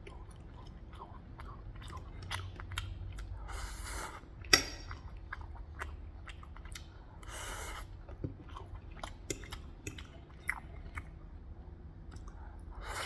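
A person chewing food with the mouth close to the microphone, with many small wet mouth clicks and two short hissy sounds. One sharp click about four and a half seconds in is the loudest sound.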